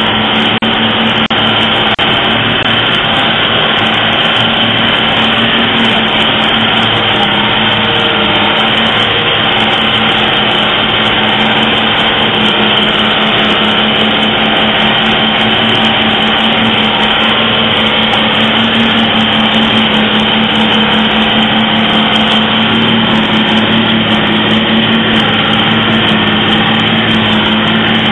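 Vehicle engine running steadily with road and cabin noise, heard from inside the vehicle on a rough gravel road: a constant low hum with a steady high whine above it.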